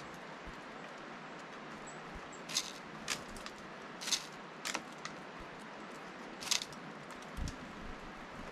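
Steller's jay pecking at sunflower seeds in a feeder dish: about five sharp clicks and crackles of beak striking seeds and dish, spaced a second or so apart, over a steady outdoor hiss. A low thump comes near the end.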